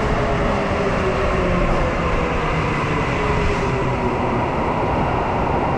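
Toei Mita Line subway train running beside the platform: a steady rumble with a faint motor whine that slowly falls in pitch.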